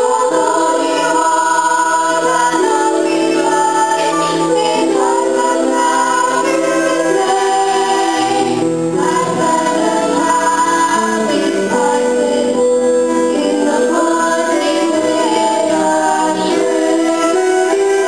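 Young stage-musical cast singing a number together, mostly female voices, in a poor-quality recording.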